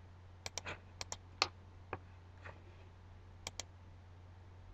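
A computer mouse clicking about nine times: quick pairs and single clicks in the first two seconds, then one more quick pair later. A faint steady low hum runs underneath.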